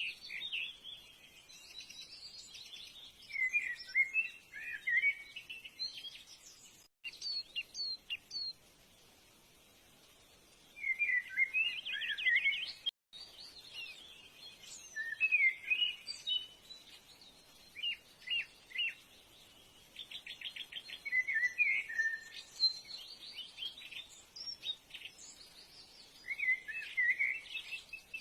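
Songbirds singing: short chirping, warbling phrases repeated every few seconds with pauses between them, and a few quick trills.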